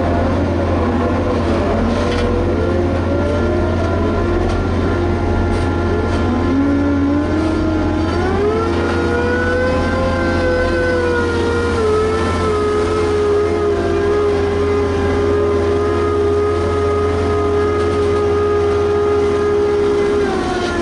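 Liebherr HS8200 dragline's diesel engine running under load over a steady low hum, its pitch rising about a third of the way in, holding high, then dropping back near the end.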